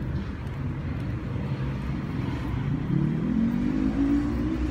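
Street traffic: a steady low rumble of road vehicles, with one engine rising in pitch as it accelerates about three seconds in.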